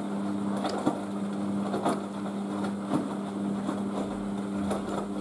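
Beko WM6143S washing machine running as it fills with water: a steady hum with irregular knocks and clicks over it.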